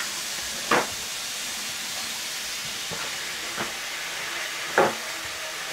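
Steady hiss with a few short knocks from objects being handled on a kitchen counter, the two loudest about a second in and near the end.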